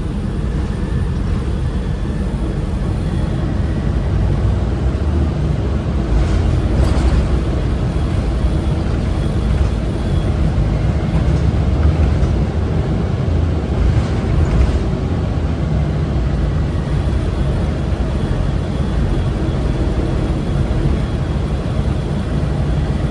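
Orion VII Next Generation transit bus running, heard from inside the cabin: a steady low drone with a few brief knocks or rattles about six and fourteen seconds in.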